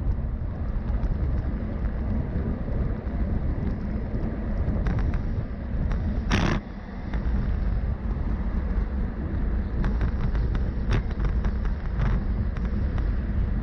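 Steady low rumble of wind and road noise while riding, with scattered small clicks and one brief sharp rushing noise about six seconds in.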